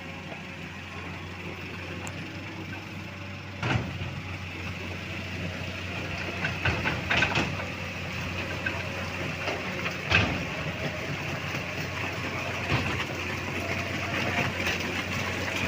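Heavy diesel engines of a stuck dump truck and excavator running steadily, with a few short knocks and clanks scattered through.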